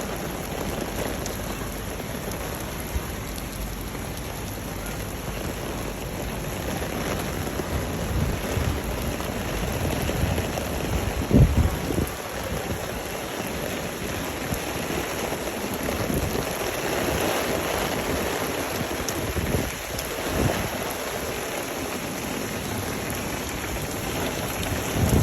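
Heavy typhoon rain pouring steadily in gusty wind, with a few short low thumps, the loudest about halfway through.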